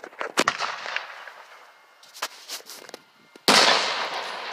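Aerial fireworks bursting overhead: a sharp bang about half a second in with a trailing hiss, a few smaller cracks in the middle, then the loudest bang near the end, followed by a long fading hiss.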